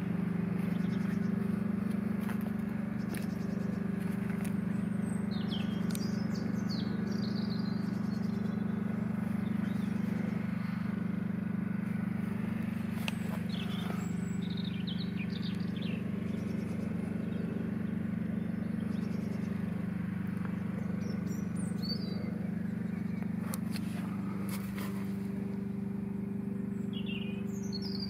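An engine idling steadily, with short bird chirps over it several times.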